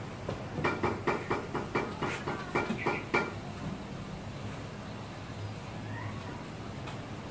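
Wooden planks knocking and clattering as they are laid and shifted on a wooden table frame: a quick run of about a dozen sharp wooden knocks over the first three seconds, then only a low steady hum.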